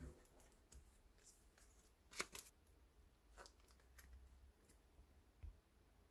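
Faint rustling and light taps of postcards and sticker sheets being handled and slid against one another, with a sharper papery click about two seconds in.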